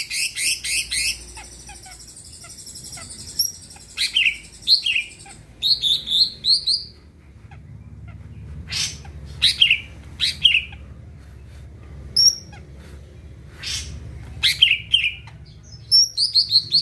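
Green leafbird (cucak ijo) singing in loud, sharp phrases of quick sweeping whistles, with a rapid trill right at the start and short pauses between phrases.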